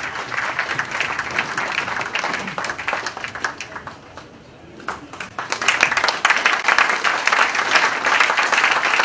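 Audience applauding, dying down about four seconds in, then swelling louder again from about five and a half seconds.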